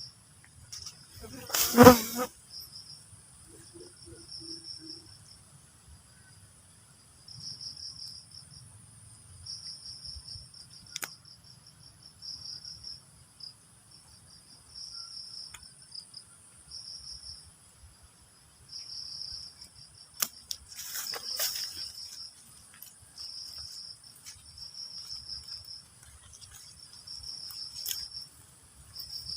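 Crickets chirping in repeated bouts of about a second each, over a steady high insect drone. A brief loud noise comes about two seconds in, and a softer one about two-thirds of the way through.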